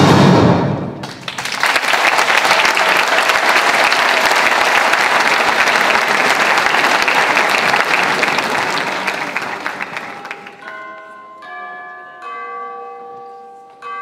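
Music stops about a second in and a theatre audience breaks into applause, which holds steady for several seconds and fades out near ten seconds. Music of slow, held tones then begins.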